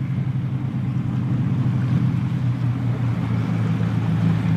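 Engine of a wooden runabout speedboat running hard at speed, a steady low drone with the hiss of spray and water over it.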